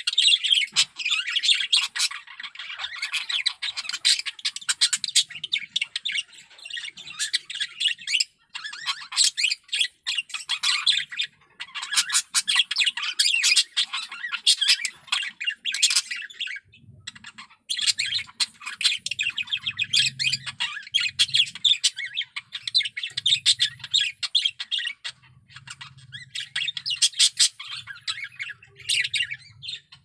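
Male budgerigar warbling: a rapid, continuous chatter of chirps, squawks and clicks in long bouts broken by brief pauses, the song of a cock bird in breeding condition.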